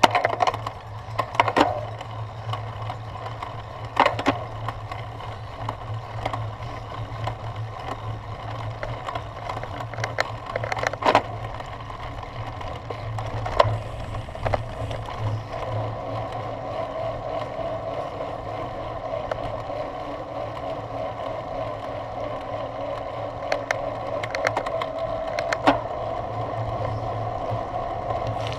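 Cyclocross bike ridden at race pace, heard from onboard: a continuous rattle and rumble of tyres and drivetrain over bumpy grass, with sharp knocks from bumps and chain slap a few times. From about halfway the rolling noise turns steadier as the tyres run onto pavement.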